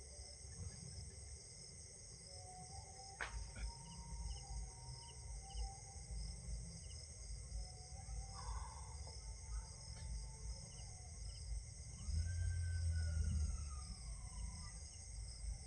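Steady high-pitched chorus of crickets, over uneven low thudding and rumble that swells about twelve seconds in, with a sharp click about three seconds in.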